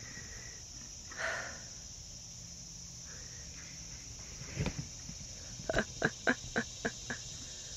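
A foal knocking a large covered ball about on dirt: a dull thump about halfway through, then a quick run of about seven short knocks. Insects chirr steadily in the background.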